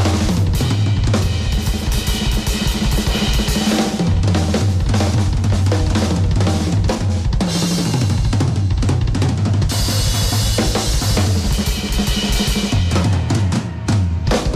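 Drum kit played in a loud, fast solo: dense rolling strokes on snare and toms over the kick drum, with cymbal crashes.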